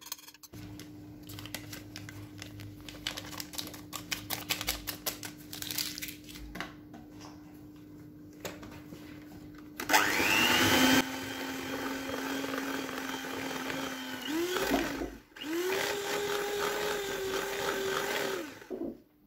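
Kiwi electric hand mixer running as it beats flour into cake batter in a bowl. It starts about halfway through with a steady whine, stops briefly, then runs again and cuts off just before the end. Before it starts there are only quiet clicks and handling sounds.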